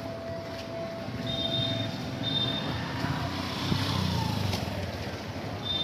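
Outdoor ambience of steady low traffic-like rumble and distant murmur, with the lingering hum of a temple bell dying away in the first two seconds. A few short high chirps come through.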